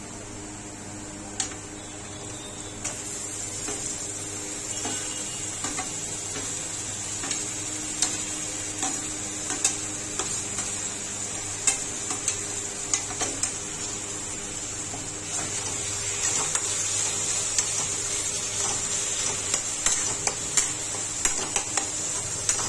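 Chopped onion frying in hot oil in an iron kadai, a steady sizzle, with a metal spatula clinking against a steel plate and scraping the pan as the onion is tipped in and stirred. The clinks come thicker and louder in the last few seconds as the stirring starts.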